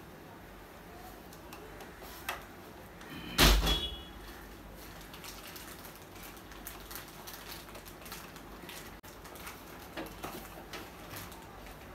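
Plastic casing of a Mitsubishi Electric split air-conditioner indoor unit being handled during installation: scattered light clicks and taps, with one loud knock about three and a half seconds in.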